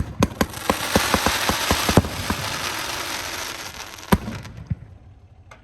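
Consumer firework cake firing: a rapid string of sharp bangs in the first two seconds over a dense crackle that fades over the next couple of seconds, then one more bang about four seconds in.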